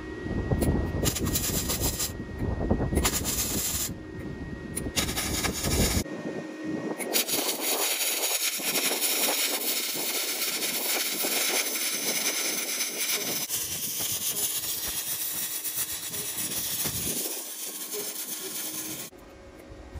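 MIG welder arc crackling and sizzling as a steel pole is welded to a steel base plate, in several spells broken by cuts. The crackle stops about a second before the end.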